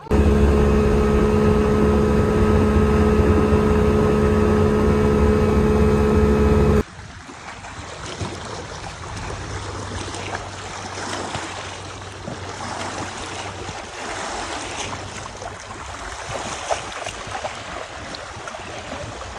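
Bayliner motorboat's engine running loud and steady at an even pitch, with wind; about seven seconds in it gives way abruptly to much quieter wind and water lapping with a faint low engine hum.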